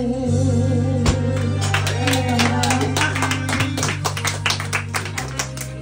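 A woman singing into a microphone over a karaoke backing track, her voice wavering on the last notes and dropping out about halfway through, while a few listeners clap along several times a second.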